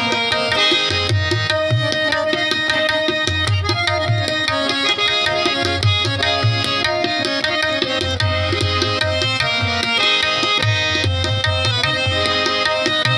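Qawwali music played live: harmoniums holding sustained chords and melody over steady, rhythmic tabla drumming.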